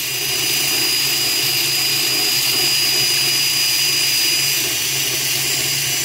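Electric drill running steadily at its top speed, spinning the armature of a Miele MXT 40-66/2 washing-machine drum motor through a bit fitted into the shaft end. A steady whir with a thin high whine over a low hum.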